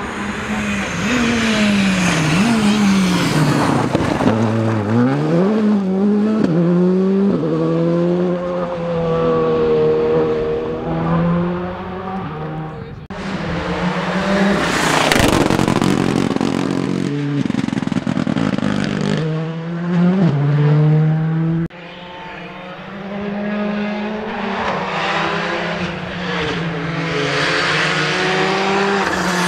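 Rally car engines revving hard, the pitch climbing and dropping again and again through gear changes and lifts, as the cars are driven flat out past the camera. About halfway there is a loud rushing pass close by.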